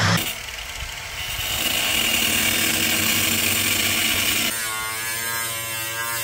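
An electric drill boring out spot welds in a car's sheet-metal body stops at the very start. It is followed by an electric angle grinder running against the steel quarter panel with a steady whine. About four and a half seconds in, the grinder's tone changes as it grinds near the wheel arch.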